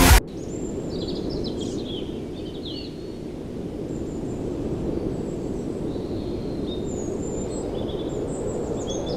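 Songbirds chirping, with short quick notes scattered throughout, over a steady low outdoor rumble. Background music cuts off abruptly just at the start.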